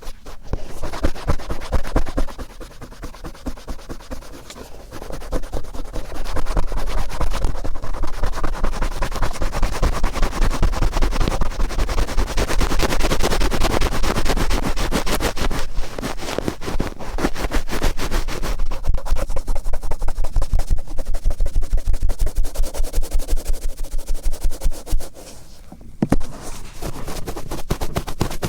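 Cotton swab rubbed and twisted firmly in the right ear: a rapid run of loud, scratchy strokes, easing off briefly a few seconds in and again near the end.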